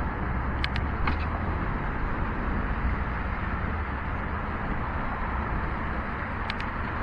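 Steady road noise of cars and tyres on a wet road, heard from a moving bicycle, with a low rumble throughout. A few short faint clicks sound about a second in and again near the end.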